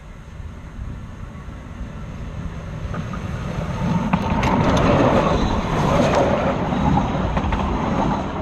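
Miniature railway locomotive rolling toward and over the track, its rumble growing louder and peaking about halfway through, with a few sharp clicks.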